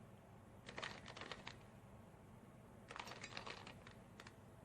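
A 3x3 Rubik's cube being turned by hand: faint runs of quick plastic clicks as its layers rotate, one burst about a second in and another about three seconds in.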